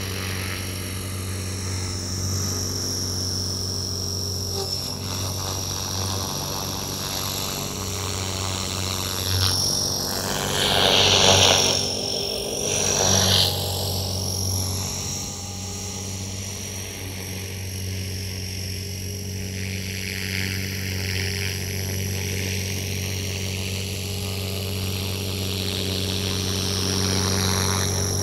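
Electric 500-size RC helicopter (Quick Japan EP8 v2 EX) flying: a steady rotor drone under a high motor whine, swelling and fading as it moves about, loudest in two close passes a little before the middle.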